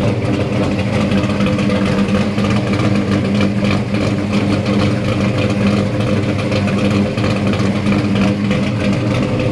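Small-block Ford stroked to 429 cubic inches, with Boss 429-style hemi heads and twin Dominator carburetors, idling at a steady speed through its exhaust. The engine is freshly built and not yet tuned beyond the dyno.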